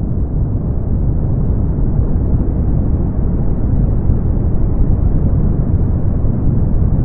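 Brown noise: a steady, loud, deep hiss with most of its weight in the bass and nothing in the treble.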